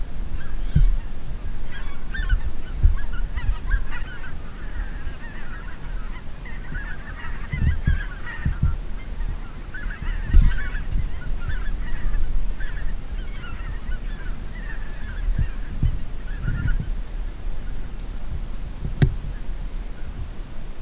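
A flock of wild geese honking in flight, many overlapping short calls that thin out toward the end. Low rumbling thumps run underneath, and there is one sharp click near the end.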